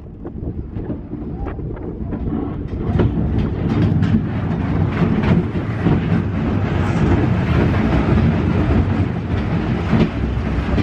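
Roller coaster train running along its steel track: a steady rumble and clatter of the wheels, getting louder about three seconds in, with wind rushing over the microphone.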